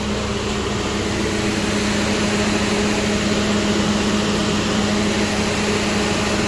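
Steady machine drone from a train standing at a station: a constant low hum over an even hiss, holding unchanged throughout.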